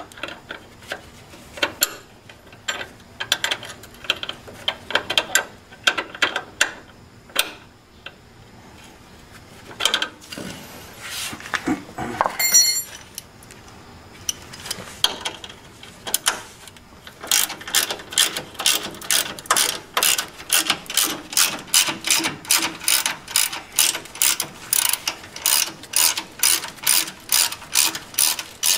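Hand ratchet clicking as a 10 mm bracket bolt is turned: scattered clicks in short strokes at first, then steady quick clicking, about two or three a second, over the last ten seconds or so. A brief high squeak about halfway through.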